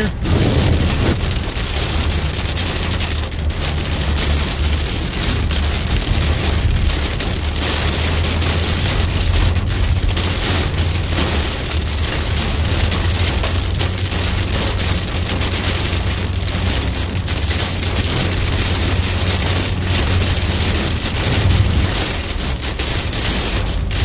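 Heavy rain beating on a moving car's roof and windshield, heard from inside the car, a steady dense hiss with a constant low rumble underneath.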